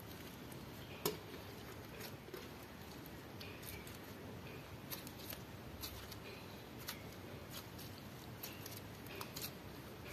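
Clear slime mixed with glitter eyeshadow being squeezed, folded and stretched by hand, giving irregular small sticky clicks and pops, with one louder click about a second in.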